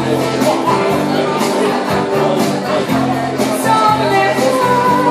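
Live acoustic duo: two acoustic guitars strummed in a steady rhythm while a woman sings the melody into a microphone.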